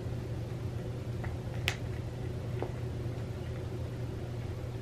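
A cat chewing a piece of roasted chicken neck, with a few sharp crunches of the bone over a steady low hum.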